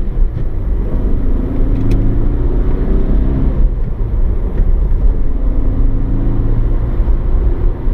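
Mitsubishi Lancer Evolution 6.5's turbocharged 2.0-litre 4G63 four-cylinder engine running while the car is driven, heard from inside the cabin with a steady low road rumble.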